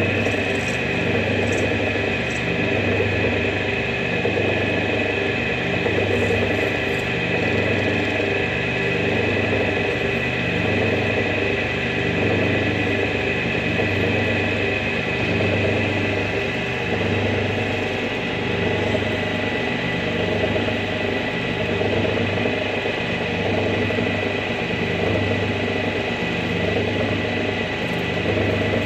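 Metal lathe running while a hand-held tool scrapes a spinning meerschaum block, a steady whine over a low hum that throbs rhythmically.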